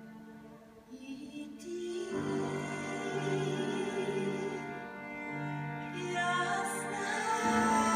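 A woman singing a slow folk song with violin, piano and string ensemble accompaniment. Soft held low string notes give way about two seconds in to the voice and instruments, and the music swells louder near the end.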